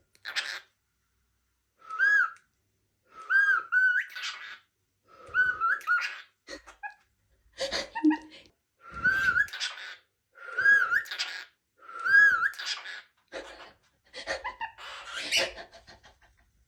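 Cockatiel calling in a string of short whistled phrases, roughly one every second or so, each built on a brief arching whistle that rises and falls, mixed with raspier chatter.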